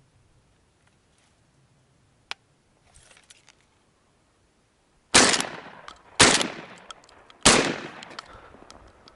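Three shotgun shots, about a second apart, each trailing off in a short echo.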